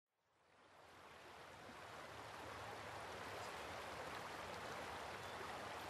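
Faint, steady rushing noise that fades in from silence over the first two seconds.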